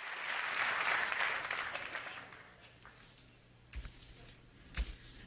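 Audience applause that fades away over about two seconds, followed by two dull thumps about a second apart over a faint steady hum.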